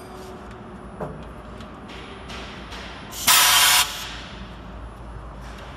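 A short, loud burst of compressed-air hiss from the packing machine's pneumatic system, lasting about half a second some three seconds in. It sits over a steady low machine hum, with a faint click about a second in.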